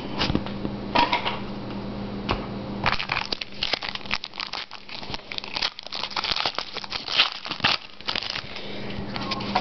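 Card-pack wrapper being crinkled and torn open by hand: scattered crackles at first, then a dense run of crinkling from about three seconds in until near the end.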